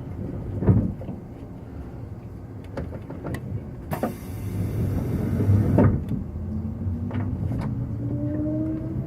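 Inside a JR 185 series electric train: a few knocks and clicks and a brief hiss of air about four seconds in, then the traction motors start a whine that rises steadily in pitch as the train pulls away and gathers speed.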